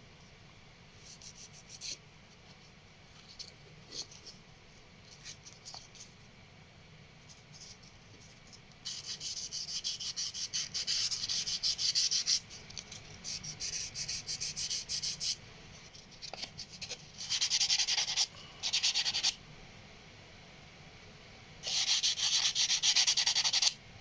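Rapid back-and-forth rubbing, like hand sanding, in long spells. Before the first spell come a few light, short scrapes. The first long spell starts about nine seconds in and runs for roughly six seconds, two shorter spells follow, and a last one comes near the end.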